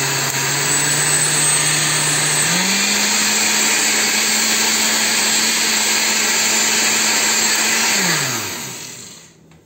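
Oster 6812-001 Core 16-speed blender running, its motor spinning a liquid drink in the glass jar. The pitch steps up to a higher speed about two and a half seconds in, then the motor is switched off near the end and winds down to a stop.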